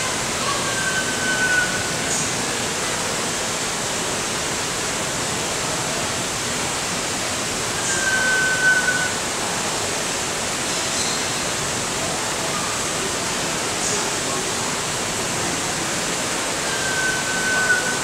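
Sunbittern calling: a long, thin whistle given three times, about eight seconds apart, each note held for about a second and falling slightly in pitch. It is a lone male looking for a mate. A steady rushing hiss runs underneath.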